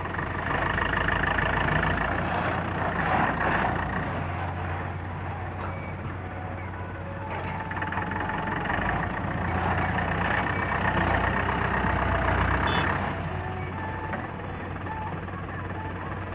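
Diesel engine of a small Eicher tipper truck running, with a reversing alarm beeping over it in two spells: from near the start to about four seconds in, and again from about seven and a half to thirteen seconds.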